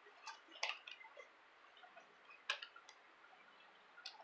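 A handful of light, irregular clicks and taps as 18-gauge speaker wire is handled and slid along a workbench.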